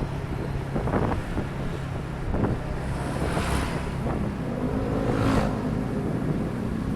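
Steady vehicle engine and road noise heard while riding through traffic, with wind buffeting the microphone. The noise swells twice, about three and five seconds in.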